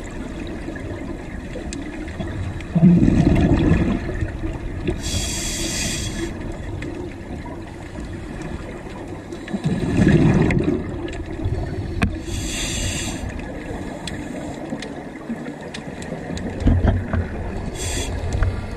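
Scuba diver's regulator breathing underwater: three short hisses as breaths are drawn in, each followed a few seconds later by a low rumble of exhaled bubbles, in a slow, even cycle.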